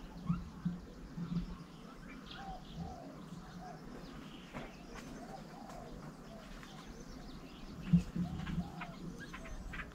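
Small birds calling at a feeding table: scattered short chirps and whistled notes, with a few low short sounds. A sharp knock about eight seconds in is the loudest sound.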